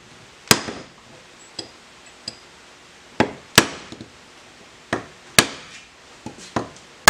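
Hammer blows driving a tight-fitting stainless steel ring onto a bushing that stands on a railroad-track anvil: sharp metallic strikes with a short ring, mostly in pairs about half a second apart, with a few lighter taps between.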